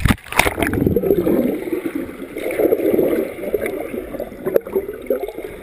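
A sharp splash as a person jumps into the sea, followed by muffled bubbling and churning water heard from underwater.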